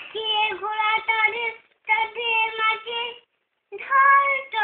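A toddler reciting a Bengali poem in a high, drawn-out sing-song voice, in three phrases with short pauses between them.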